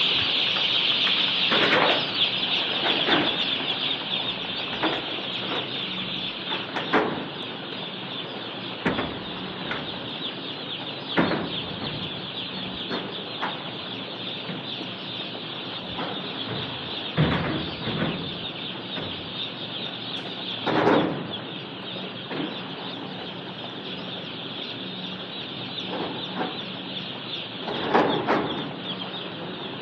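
Day-old Ross 308 broiler chicks peeping as a dense, steady high-pitched chorus from many birds at once, with a few scattered knocks.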